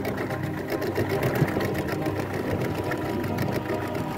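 Small outboard motor running steadily under way, a fast, even mechanical clatter.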